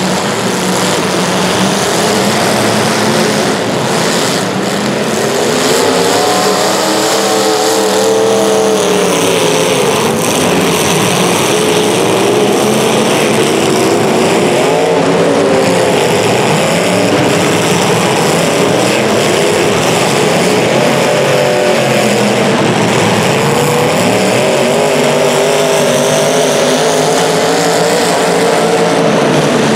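Several small racing engines running together, each rising and falling in pitch as they rev up and ease off around a track.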